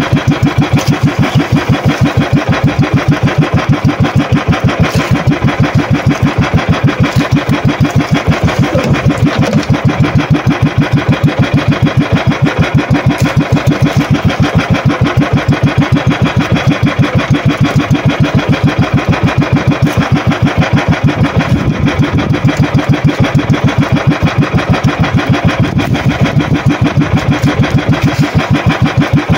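Small engine of a motorized outrigger fishing boat (bangka) running steadily, with a fast, even beat and no change in speed.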